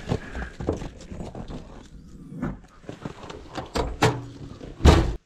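Irregular clunks and knocks of gear being handled at a vehicle's door and bed, with one loud thump near the end.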